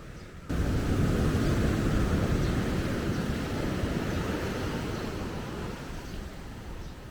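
Heavy surf from a typhoon-rough sea, with wind noise, cutting in abruptly about half a second in and slowly easing off.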